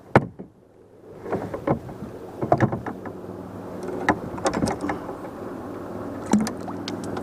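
Scattered knocks and taps on a plastic fishing kayak as a freshly caught buffalo fish is handled beside the hull.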